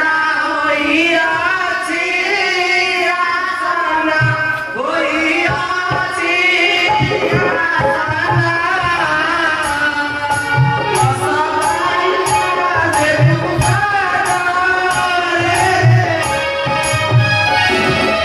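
Jatra stage music: a wavering melody over drums with a steady beat, joined by regular high ticks from about seven seconds in.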